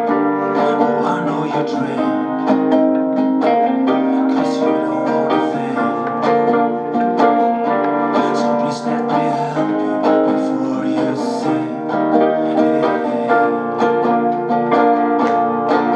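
Music: a plucked-string piece, guitar-like, with notes picked in quick succession over sustained chords.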